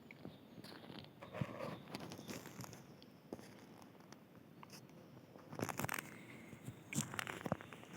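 Footsteps of a person walking, uneven scuffing steps with a few louder ones in the second half.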